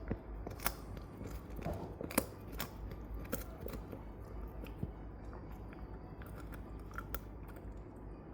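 Shiba Inu gnawing a bone: irregular sharp crunches and clicks of teeth on bone, more frequent in the first half, over a steady low hum.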